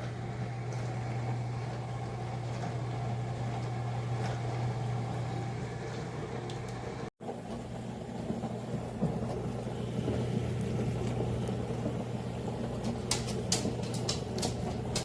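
HAVA countertop dishwasher running: a steady motor hum with water swishing inside. The sound drops out for an instant about seven seconds in, and a few sharp clicks come near the end.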